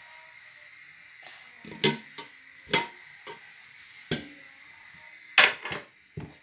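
Metal pots and pans knocking together as a baby picks up and stacks stainless steel cooking pots: a series of sharp, irregular clanks, the loudest about five and a half seconds in.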